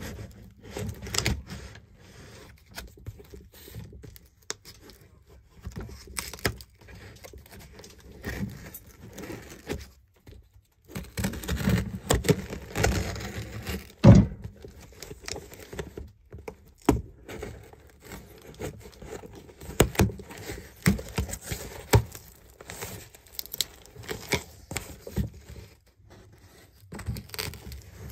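A cardboard shipping box being opened by hand: packing tape torn, cardboard flaps and plastic wrapping crinkling and scraping, with irregular knocks from handling. The sharpest knock comes about halfway through.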